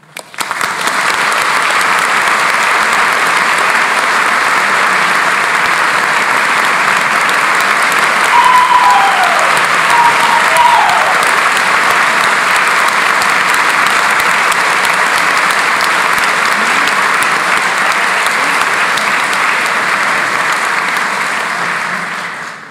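A large audience applauding: dense, steady clapping that builds within the first second, holds for about twenty seconds and fades out at the end.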